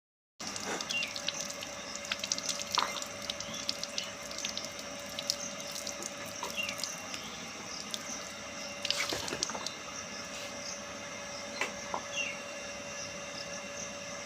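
Water running and trickling, with many irregular drips and splashes, over a faint steady tone.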